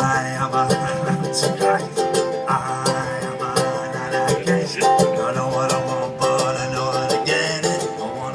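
Ukulele strummed in a steady rhythm while a man sings along.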